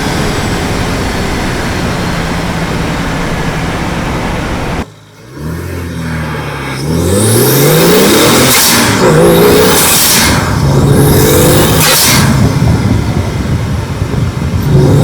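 BMW 335xi's twin-turbo N54 inline-six under hard acceleration. It runs steadily, drops away briefly about five seconds in, then climbs through the revs, rising and breaking off several times as it shifts up.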